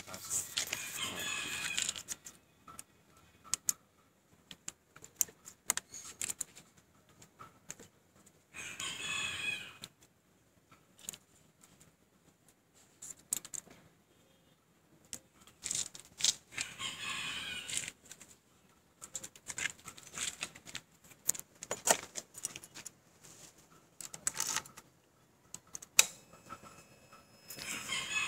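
A rooster crowing several times, each crow lasting a second or two, with scattered small clicks and rattles of hands handling wires and tools between the crows.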